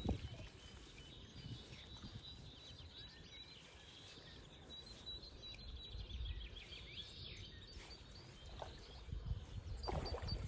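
Small birds chirping and twittering in the background, with low wind rumble on the microphone that swells near the end.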